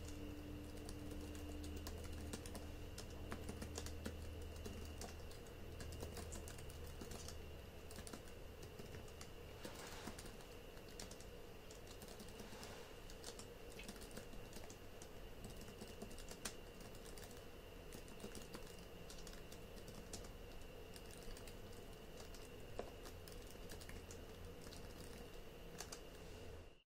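Typing on a laptop keyboard: an irregular run of quiet key clicks over a low steady hum, cutting off suddenly near the end.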